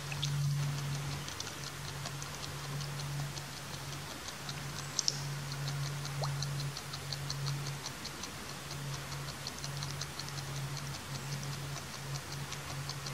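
A beaver chewing its food: a quick, fairly even run of small clicks, about five a second, over a low steady hum that breaks off briefly now and then.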